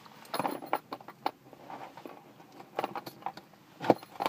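Fingers picking and scratching at the taped flaps of a cardboard shipping box, with irregular scrapes and clicks and a sharper knock near the end, as the box resists opening.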